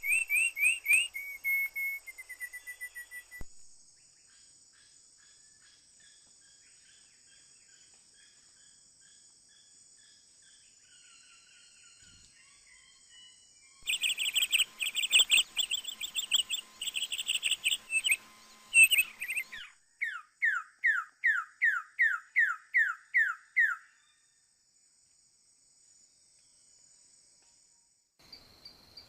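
Small songbird calling and singing: a burst of loud chirps at the start, fainter chirping, a loud rapid chattering run about halfway through, then a series of about nine quick down-slurred whistled notes. A steady high insect buzz runs beneath most of it.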